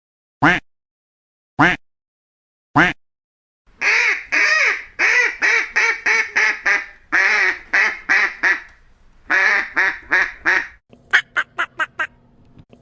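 Ducks quacking: three single quacks with dead silence between, then a long run of loud, harsh quacks in quick succession, and near the end a faster series of short quacks, about four a second.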